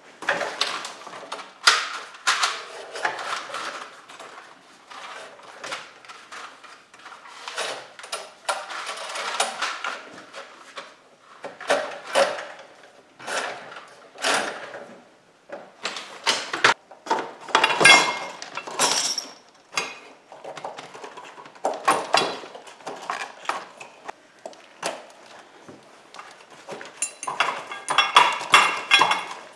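Electrical wires being pulled through half-inch EMT steel conduit with a fish tape: irregular scraping and rattling of wire and tape against the metal pipe, with a few ringing metallic clinks.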